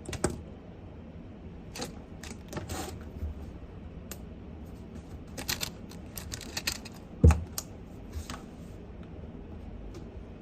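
Small desk sounds of someone studying: scattered light clicks, taps and rustles of handled objects, with one louder thump about seven seconds in.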